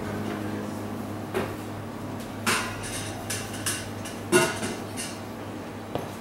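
Bar-room ambience: a steady low hum with scattered short clinks and knocks of crockery and glassware being handled, about eight in all, the loudest about four seconds in.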